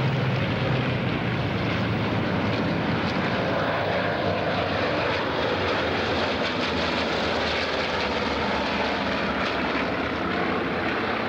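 Piston-engined Second World War fighters flying overhead in formation, their propeller engines droning steadily, with the pitch shifting slightly as they pass about halfway through.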